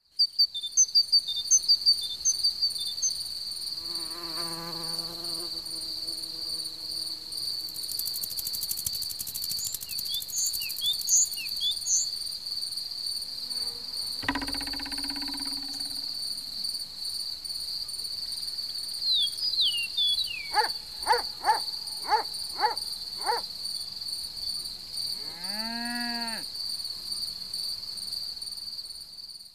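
A cricket trilling steadily at a high pitch. Over the trill come scattered short chirps, a run of about five sharp clicks a little past the middle, and a brief sound that sweeps up and down near the end.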